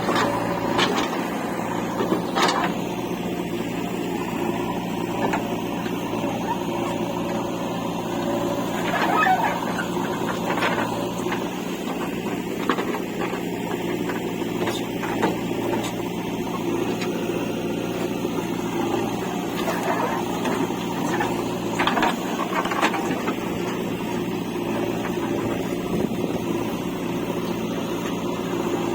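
Heavy-machinery diesel engine running steadily, as at a backhoe loading a tractor trolley, with occasional short sharp knocks and clanks.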